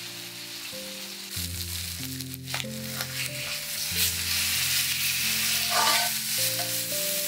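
Steak searing in a cast-iron skillet, sizzling steadily. The sizzle grows louder about halfway through as the steak is turned over onto its other side, with a few short scrapes of the turner against the pan.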